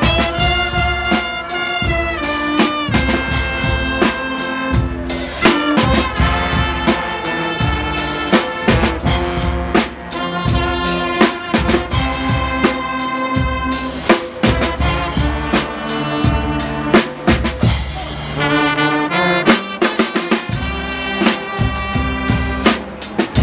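Guggenmusik brass band playing: trumpets, trombones and sousaphone holding loud chords and melody over a driving drum kit and snare beat.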